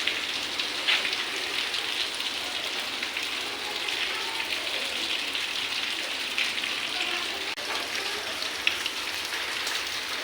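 Steady rain falling, an even hiss dotted with sharper drop hits.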